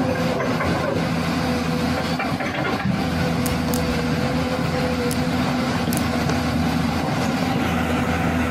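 Steady engine-like running with a low humming drone that holds level throughout, and a few faint light clicks.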